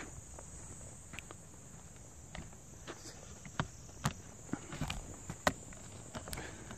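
Steady high-pitched insect chorus from the forest, with irregular footsteps and small knocks as a hiker walks along a dry trail.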